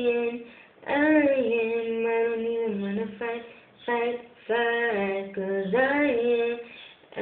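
A woman singing a pop song solo with no backing, in phrases of long held notes with short breaks between them. The sound is thin, as recorded on a mobile phone.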